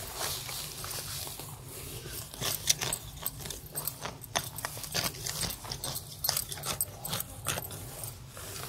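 Grass weeds being pulled up by hand from soil: irregular rustling and crackling as stems and roots tear loose, with close leaf brushing.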